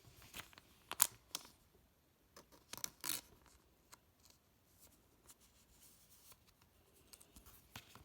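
Football trading cards being handled and shuffled by hand: a scattering of short, crisp clicks and rustles, loudest about one second in and again around three seconds in.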